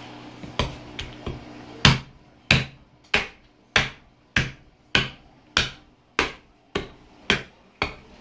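Meat cleaver chopping into a pig's head on a plastic cutting board: a few light knocks, then a steady run of about eleven hard chops, roughly one every half second.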